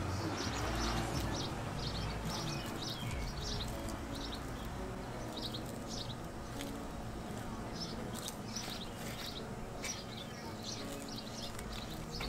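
Small birds chirping, quick short high notes repeated throughout, over a steady low background noise.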